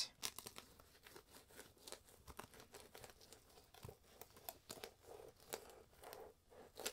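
Faint scraping and crackling of a knife cutting the fillets from a small perch, with scattered small clicks.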